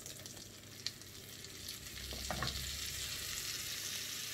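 Melted butter and olive oil sizzling in a nonstick pan as all-purpose flour is tipped in to make the roux for a white sauce. The sizzle grows louder from about a second and a half in, with one light click just before the first second.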